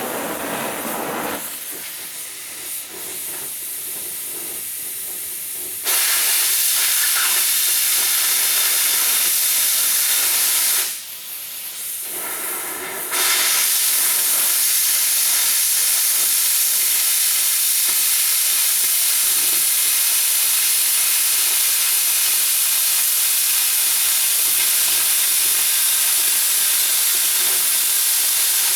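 Oxy-fuel cutting torch cutting through steel C-channel: a loud, steady hiss that drops to a softer hiss twice, from about a second and a half to six seconds in, and again briefly around eleven to thirteen seconds in.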